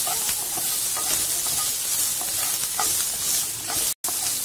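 Cashews, garlic cloves and ginger sizzling in butter in a non-stick pan, stirred with a wooden spatula that clicks and scrapes against the pan now and then. The sound drops out for an instant near the end.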